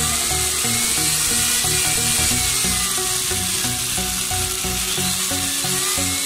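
Power tool spinning a carbide burr against the inside of a brass ring, a steady high-pitched grinding hiss whose whine drifts up and down as the cut loads and unloads the motor. Background music plays underneath.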